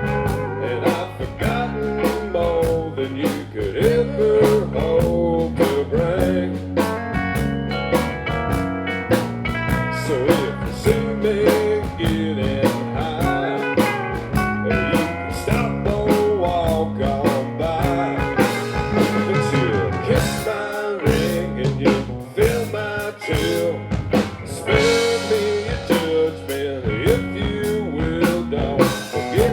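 A live country band plays an instrumental passage: a wavering lead guitar line over bass and a steady drum beat.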